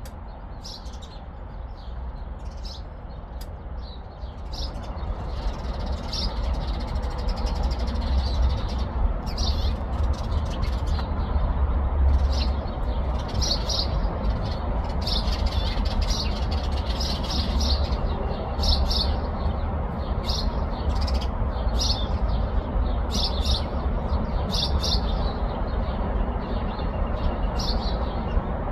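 Small birds chirping in short, high, repeated notes over a steady low rumble and hiss that grows louder a few seconds in.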